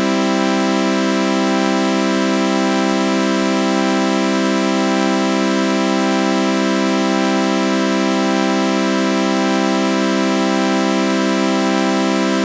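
Sustained synthesizer chord of sawtooth waves run through a flanger, held on one unchanging chord with a faint slow wavering about once a second.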